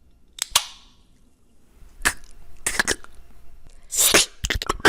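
Mouth sound effects: a run of sharp clicks and pops made with the mouth, with a short hiss about four seconds in and a quick cluster of clicks near the end.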